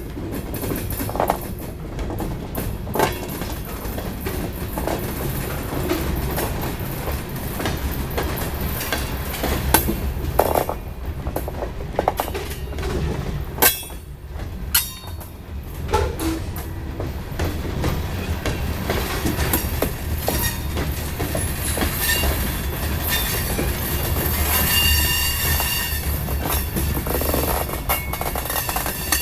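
Ithaca Central Railroad train rolling by, with a steady low rumble, repeated clicks and knocks from the wheels and cars, and thin high wheel squeal in the second half.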